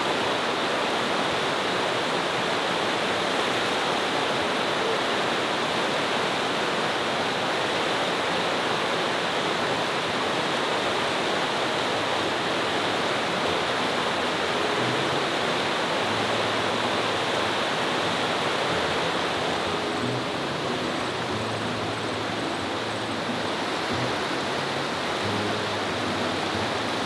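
Fast, swollen river rushing over rocks in rapids: a steady, dense water rush that eases slightly about two-thirds of the way in.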